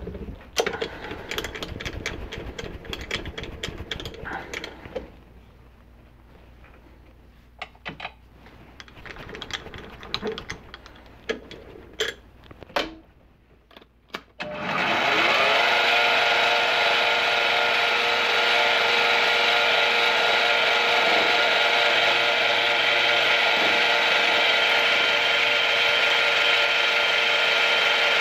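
Clicks and knocks of a bench-top milling machine being adjusted by hand. About halfway through, its spindle motor starts with a brief rising whine and then runs steadily with a face mill in the spindle.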